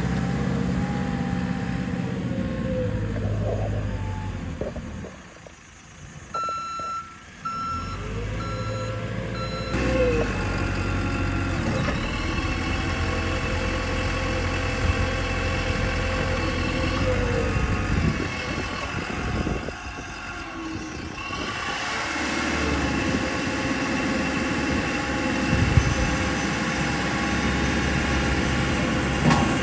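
JCB 3CX 14 backhoe loader's diesel engine working, its revs rising and falling as the machine operates. A reversing alarm beeps about four times a little after a quarter of the way in.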